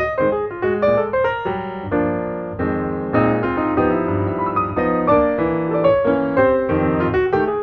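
Background piano music: quick runs of notes over held chords.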